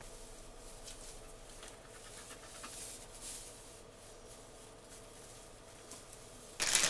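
Soft rustling and scratching of tinsel garland being wound around the branches of a small artificial Christmas tree, with a faint steady hum behind it. A much louder crinkling rustle starts near the end.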